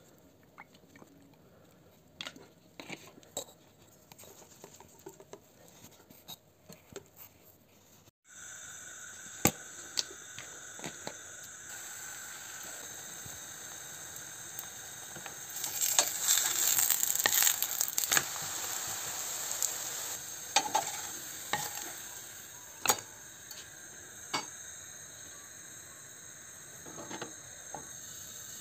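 For about the first eight seconds, light clinks and taps of a wire whisk in a bowl of pancake batter. Then a frying pan of thin pancake batter sizzles steadily with small pops and crackles, growing louder for a few seconds in the middle.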